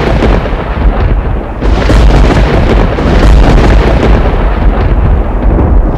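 Loud, continuous rumbling noise with a heavy deep bass, a thunder-like sound effect laid under the opening title cards.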